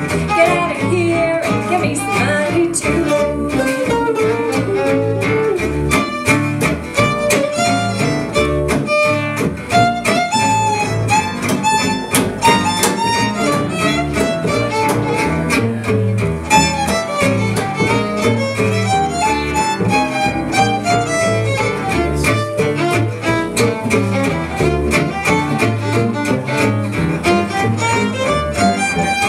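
Acoustic swing band playing instrumentally: a violin carries the lead over steady strummed rhythm guitar and bass.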